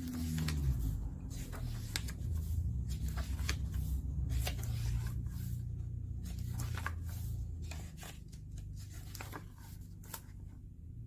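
Pages of a hardback book being leafed through and handled: scattered soft paper rustles and light taps over a steady low hum.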